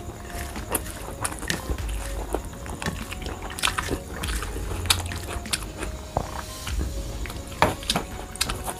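Close-up eating sounds: wet chewing and lip smacks, with fingers squishing rice and cabbage curry against a steel plate, as a string of sharp clicks and smacks.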